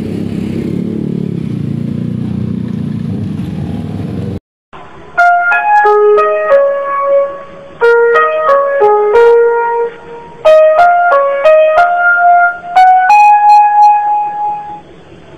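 Steady road traffic noise from motorbikes and cars. About four and a half seconds in it cuts off, and after a brief gap a keyboard piano melody of single notes starts and plays to the end.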